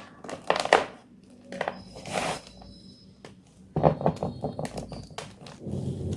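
Fresh white gym chalk being crushed, crunching and crackling in several short clusters with pauses between them.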